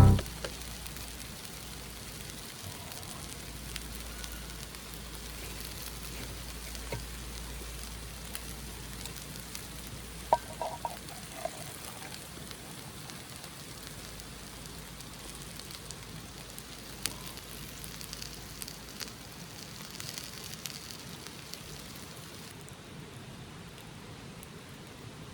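Steady rain falling on surfaces, with scattered sharp drop ticks. About ten seconds in come a few short clinks with a brief ring.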